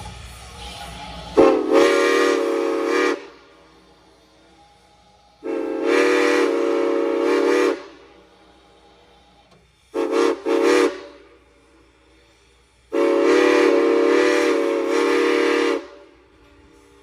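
Norfolk & Western 475's steam whistle blowing the grade-crossing signal: two long blasts, a short one, then a final long blast.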